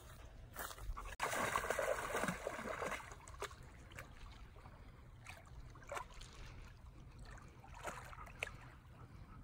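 Shallow water splashing around a wading Airedale terrier. The splashing is louder for a couple of seconds starting about a second in, then settles into soft lapping with a few small splashes.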